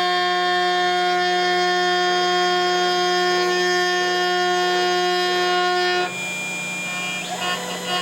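CNC router spindle running with a steady whine, with several tones held at once, while it cuts with a slot drill. About six seconds in, the whine stops abruptly; a lone steady tone follows, and music with a pulsing beat starts near the end.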